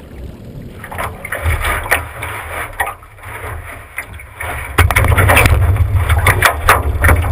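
Thumps, knocks and scrapes on a small boat's hull as a man steps aboard and tumbles backward into it, over a heavy low rumble from the boat being rocked and jostled; the knocking is loudest and thickest in the last couple of seconds.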